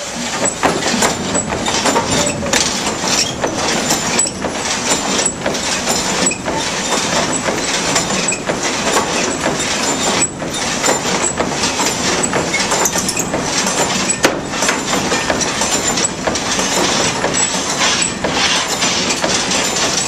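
Water-powered sash sawmill running, its up-and-down saw blade cutting through a log with a steady clatter that pulses about once a second. It starts up suddenly right at the beginning.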